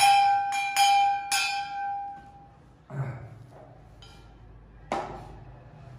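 A small bell struck four times in quick succession over the first second and a half, each strike ringing out with a clear steady tone that fades away by about two and a half seconds in. A brief low sound follows about three seconds in, and a single sharp knock near the five-second mark.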